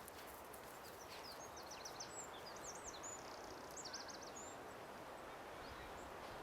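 Small birds chirping in quick, high-pitched twitters, busiest a second or two in, over a steady low background hiss.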